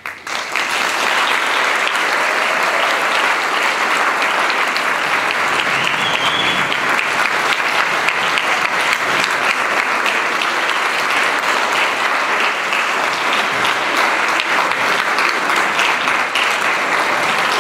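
Audience applauding, breaking out suddenly at the start and holding steady throughout.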